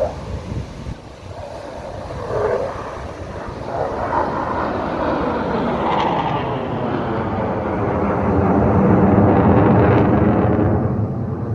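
Formation of jet fighters flying overhead: a jet engine rumble that builds steadily to its loudest about nine to ten seconds in, then eases slightly.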